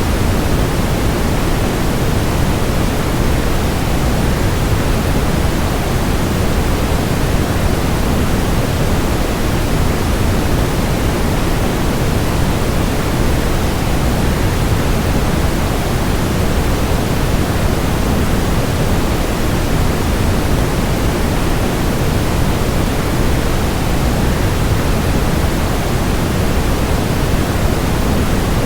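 Waterfall rushing steadily as a continuous sleep noise, an unbroken deep hiss heaviest in the low end, with no change in level.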